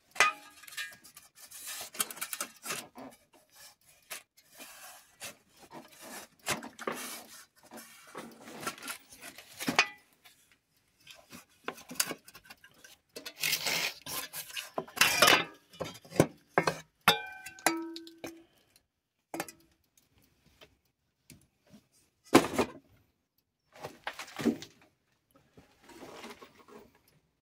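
Metal parts of an old three-phase induction motor being handled: irregular clinks, knocks and scraping rubs, with a brief ringing tone a little after halfway.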